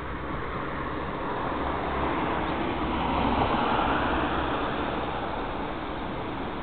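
A vehicle passing by: a rush of noise that swells to its loudest about halfway through, then fades.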